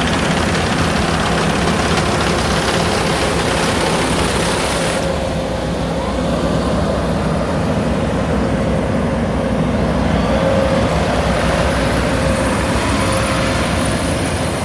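A harvest machine's engine running steadily. The high hiss drops away abruptly about five seconds in, while the low running sound carries on.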